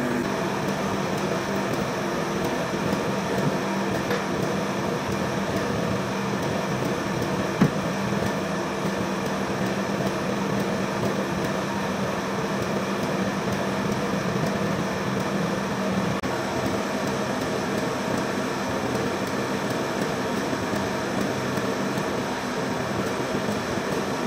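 Hydraulic forging press running with a steady motor-and-pump hum and a hiss while it squeezes a glowing steel billet. The hum weakens about two-thirds of the way through. There is a single sharp click about seven and a half seconds in.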